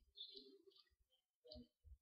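Near silence, with a few faint soft clicks and rustles as fingers press coarse sand grains onto glued glass.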